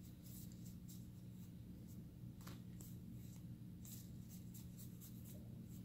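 Weiss Schwarz trading cards being sorted by hand, with faint scattered flicks and rustles as the cards slide against each other, over a steady low hum.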